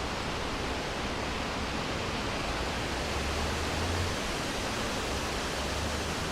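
Wind blowing through a forest: a steady, even rushing noise, with a low rumble swelling about halfway through.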